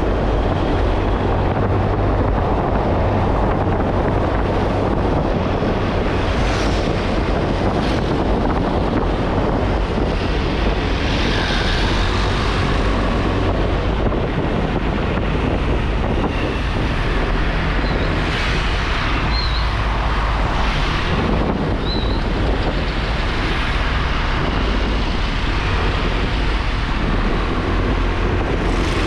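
Steady wind buffeting the microphone of a motorcycle being ridden along a road, with the bike's running engine and road noise underneath.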